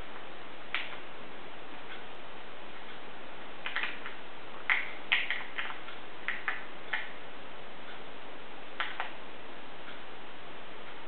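Prairie dog crunching dry food pellets: short, crisp crunches in irregular clusters, most of them in the middle of the stretch, over a steady hiss.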